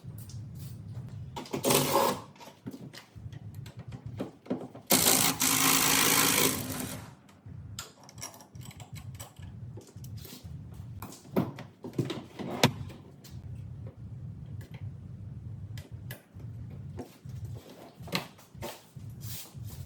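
Car interior being stripped: scattered clicks and knocks of trim parts and fixings, with a loud rattling burst of a tool lasting about two seconds a few seconds in.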